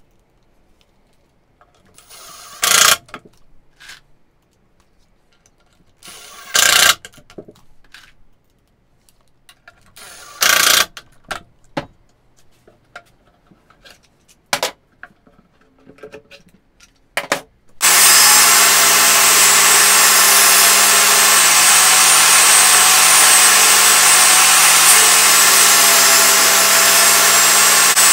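A few short bursts of a cordless drill driving screws, about every four seconds, with clicks and knocks of handling in between. About two-thirds through, a DeWalt DWE7492 table saw's steady, loud running starts abruptly and carries on to the end.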